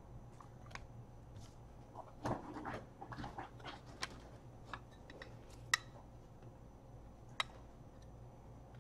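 Faint, scattered small clicks and taps of trading cards and plastic magnetic card holders being handled, a few sharper clicks among them, over a low steady hum.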